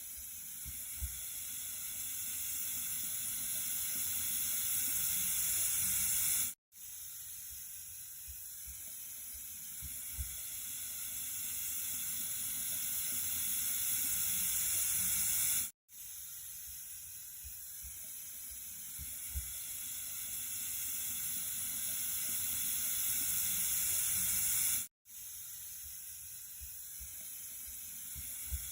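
Steady hissing rush of flowing water, a short recording looped: it cuts out for an instant three times, about every nine seconds, and grows slightly louder between the cuts.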